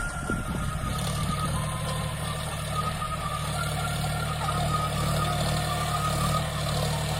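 John Deere 5050D tractor's three-cylinder diesel engine running steadily under load, with a thin high whine over the engine note.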